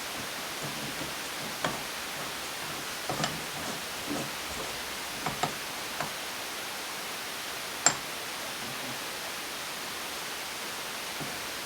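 Light clicks and knocks of tools and engine parts being handled on a workbench, over a steady hiss; the sharpest knock comes about eight seconds in.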